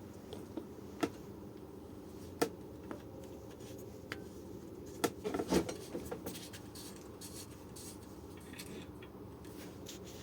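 A few light clicks and taps of tools and small parts being handled at a workbench, over faint steady room noise.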